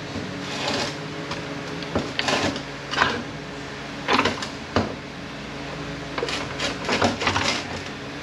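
Steel parts of a 231J transfer case clinking and scraping as its gear assembly and shift fork are worked out of the case half: a string of irregular short knocks and scrapes over a steady low hum.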